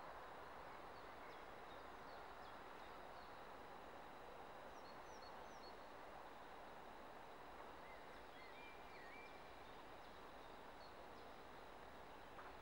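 Near silence: faint outdoor hiss with a few small bird chirps scattered through it.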